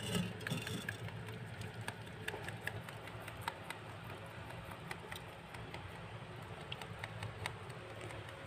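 Soft scattered clicks and rustles of rabbits nibbling and moving through grass stems, over a steady low hum. A brief louder knock comes just after the start.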